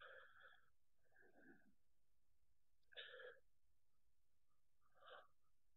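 Near silence: room tone with four faint, short breathy vocal sounds from a man, spaced a second or two apart.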